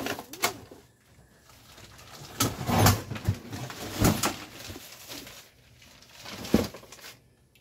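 Scattered knocks and clunks of hard objects being shifted and set down while rummaging through stored parts, with quieter rustling between them.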